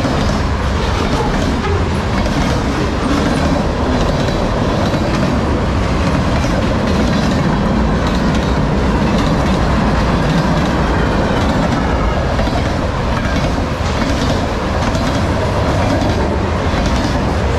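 CN freight train's covered hoppers and centerbeam flatcars rolling past at speed: loud, steady steel-wheel rumble on the rail with a continuous clickety-clack of wheels crossing rail joints.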